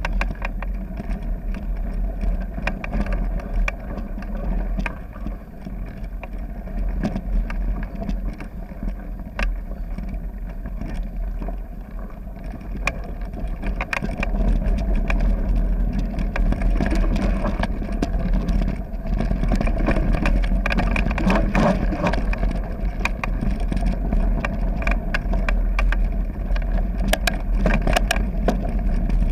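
Mountain bike running fast over a gravel trail, picked up by a bike-mounted camera: tyres crunching on gravel, the bike rattling and clattering over bumps, and a deep wind rumble on the microphone. It gets louder about halfway through.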